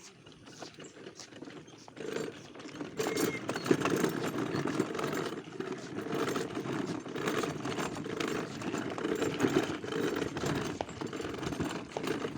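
Children's ride-on toy car driving over rough ground: a steady rattling rumble of its wheels with scattered clicks, getting louder about two seconds in.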